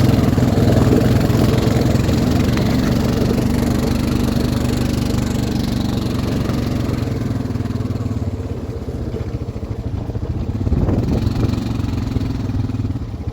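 ATV engine running, loudest over the first half and easing off about two-thirds of the way through, with a brief swell near the end.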